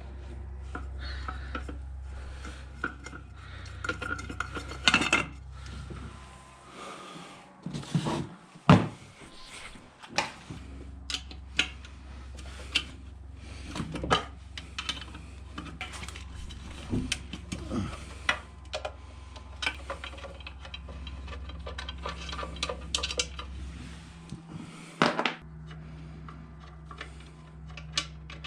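Repeated clinks, clicks and knocks of hard tools and parts being handled, over a steady low hum that drops out twice.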